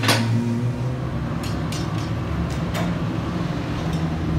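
Steady low mechanical hum of workshop machinery, with a sharp metallic clank right at the start and a few lighter clicks around the middle.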